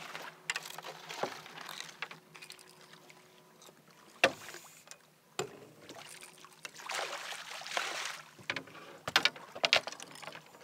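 Scattered knocks and clatter of fishing rods and gear against an aluminium boat while a hooked catfish is reeled in and brought alongside, with a short rush of splashing about seven seconds in.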